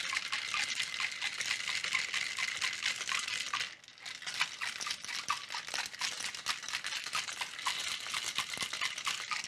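Ice rattling inside a 700 ml stainless steel cocktail shaker being shaken hard: a fast, continuous clatter that dips briefly about four seconds in, then resumes and stops abruptly.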